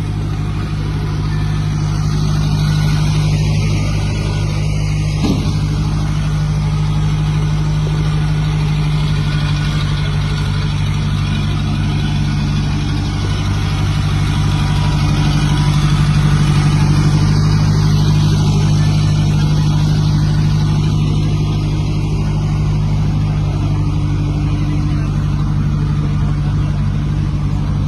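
Small four-wheel-drive backhoe loader's diesel engine running steadily at a constant pitch, with a single short knock about five seconds in.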